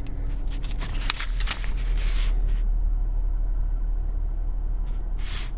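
Pages of a paper booklet rustling and turning, in a cluster of crackles over the first two and a half seconds and once more near the end, over a steady low rumble inside a car.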